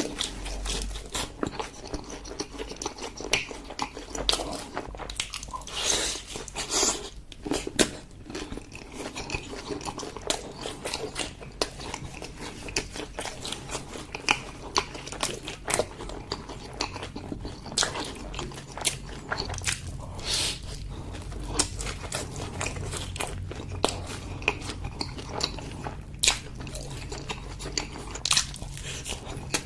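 Close-miked eating sounds of a person chewing and biting into braised pork leg, with many irregular sharp crunches and clicks.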